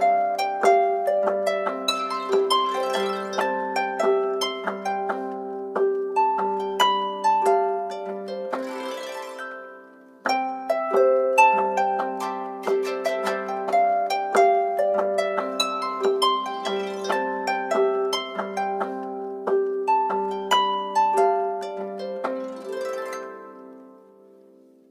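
Samsung Galaxy phone ringtone: a harp-like plucked melody over a repeating low note. It plays through twice, each pass ending with a high shimmer and fading out, the second fading near the end.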